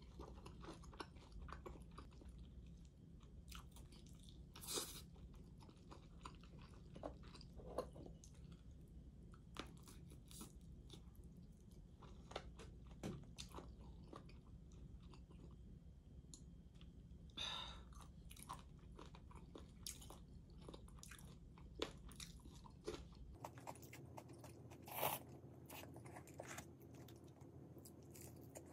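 Close, quiet mukbang-style eating of crispy honey-glazed fried chicken: scattered crunching and chewing clicks as the coating and the crunchy cartilage bits are bitten, with a few louder crunches.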